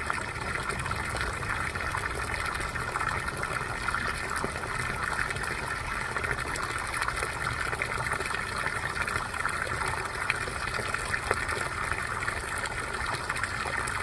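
Spring water falling into a small pond and running down a rocky stone channel: a steady gushing and splashing.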